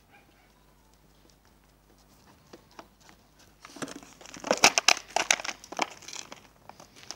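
A cane corso chewing a clear plastic bottle, the plastic crinkling and crackling in its jaws. A dense run of sharp crackles starts about halfway in and tails off near the end.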